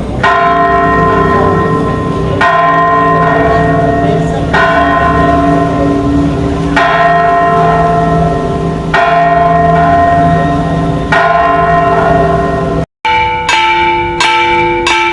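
Church bell struck slowly, about once every two seconds, each stroke ringing on into the next. Near the end, after a sudden silent break, a different, higher-sounding bell is struck faster, about two strokes a second.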